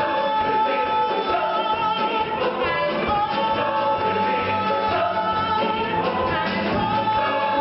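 Musical theatre ensemble singing a show tune together in chorus, loud and continuous.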